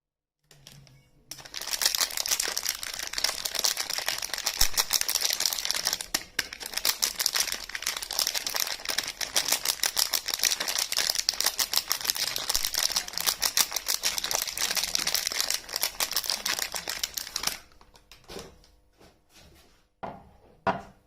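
Close-miked crinkling and crackling of soap wrapping being handled and unwrapped. It goes on densely for about sixteen seconds, then thins to a few soft rustles near the end.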